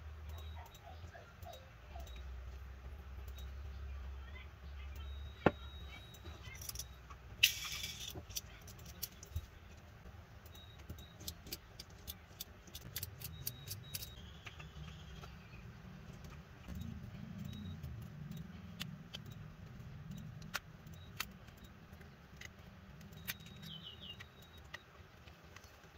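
Faint small clicks, taps and metallic ticks of hands and a precision screwdriver working on an iPhone 6's aluminium body and screen, with two sharper clicks about five and seven seconds in. A faint low hum runs underneath.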